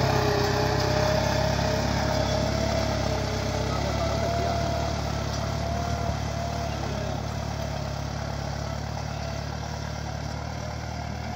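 Deutz-Fahr tractor engine running steadily under load as it pulls a three-furrow reversible plough through the soil. The sound grows gradually fainter as the tractor moves away.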